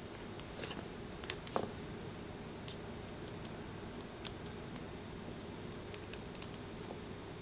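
A few scattered, irregular key clicks from a PC keyboard being typed on, over a steady low hum.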